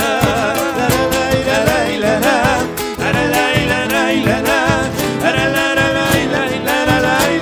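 Live Argentine folk song: acoustic guitars strumming under a melody line with heavy vibrato.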